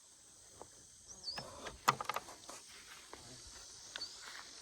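A bird gives a short whistled call that rises and then drops, about a second in, with a shorter, fainter note near the end. Just after the first call comes a quick cluster of sharp clicks and knocks, over faint outdoor background noise.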